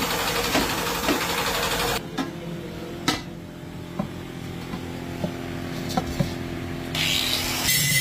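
Workshop sounds around spun aluminium cookware. For about two seconds there is a loud, steady mechanical noise. Then it changes suddenly to a quieter steady machine hum with several sharp metallic taps of aluminium vessels being handled. Near the end a brighter, louder sound comes in.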